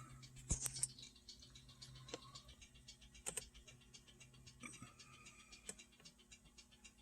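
A few faint, scattered clicks over a low steady hum, like a computer mouse being clicked while paging through photos.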